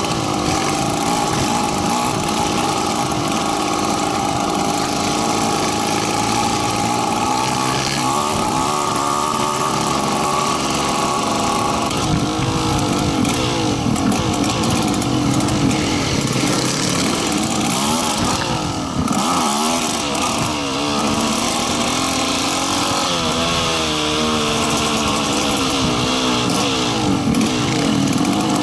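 Dirt bike engines running and revving, the engine note rising and falling again and again as the throttle is worked.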